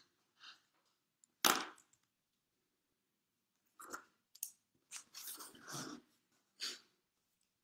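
Scattered short rustling and knocking handling noises close to the microphone, the loudest about one and a half seconds in, then a cluster from about four to seven seconds.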